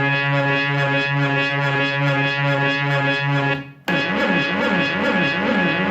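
Memorymoog analog polyphonic synthesizer holding a low note that pulses in volume about three times a second. Near four seconds in it breaks off briefly and a new patch sounds, its pitch sliding up and down about twice a second under LFO modulation.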